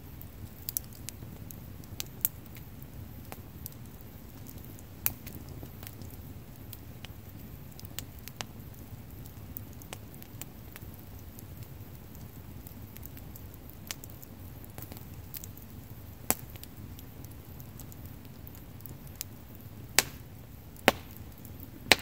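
Wood bonfire burning, a steady low rush of flame under scattered sharp crackles and pops from the burning sticks, with three louder pops close together near the end.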